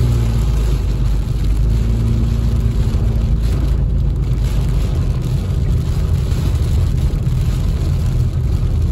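Steady drone of a car's engine and tyres on a rain-soaked road, heard from inside the cabin, with a rushing hiss of rain and road spray over it.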